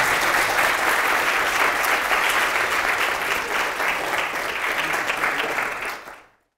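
Audience applauding, a dense steady clapping that fades out quickly about six seconds in.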